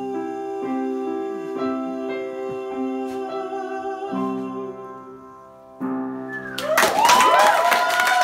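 Upright piano playing the closing sustained chords of a show tune, the last chord struck about six seconds in. Just after, the audience breaks into loud applause with whooping cheers.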